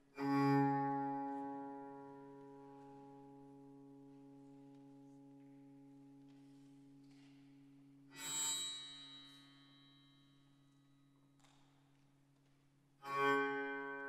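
Double bass played in three sudden, strong strokes, about eight and then five seconds apart. Each stroke rings with a dense stack of bright overtones and fades slowly into a sustained, steady drone.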